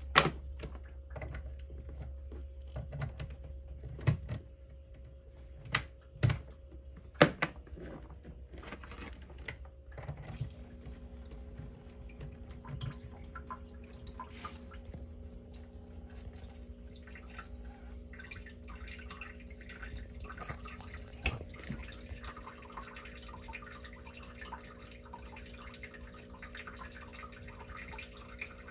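A few clicks and knocks, then about ten seconds in a small water pump starts humming and the rain chamber begins dripping: water falls from the holes poked along the tubing on the screen lid into the frog tank, a steady spread of small drips.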